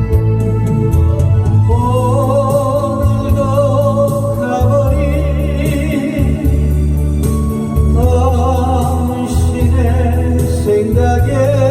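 Korean trot song: a solo singer sings long held notes with vibrato over a backing track with a steady beat and bass.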